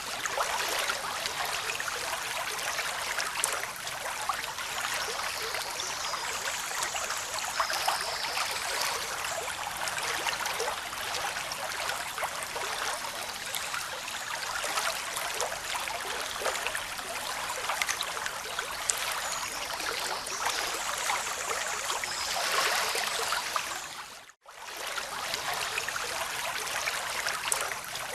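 Steady rushing water with slow swells in level. It drops out for an instant about 24 seconds in, then resumes.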